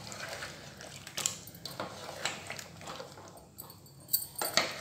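A plastic spatula stirring chicken in thick frying masala in an aluminium pot: a string of irregular scrapes and knocks against the pot, the sharpest two near the end.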